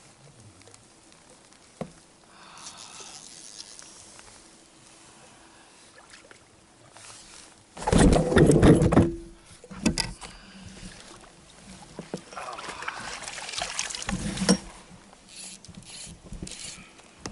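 Handling noise of a camera being bumped and tipped over against an inflatable boat: a loud rubbing clatter about eight seconds in, a few sharp knocks near ten seconds, then more scraping and rustling.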